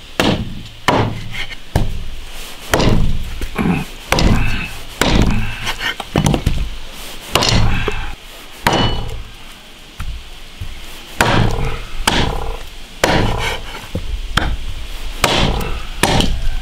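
Chinese cleaver chopping through beef ribs into small chunks: heavy, uneven chops about once a second, with a pause of about two seconds just past the middle. The bone is hard.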